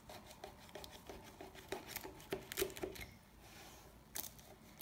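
Knife cutting through the crisp, flaky crust of a freshly baked Albanian börek: faint, irregular crackles and light ticks as the layers break.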